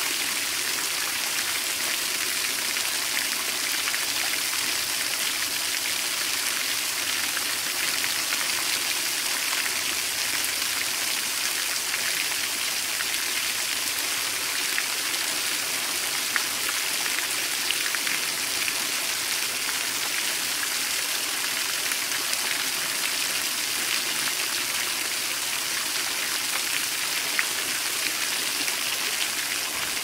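Steady hiss of falling water, rain or a waterfall sound effect, with a few sharper drop ticks now and then.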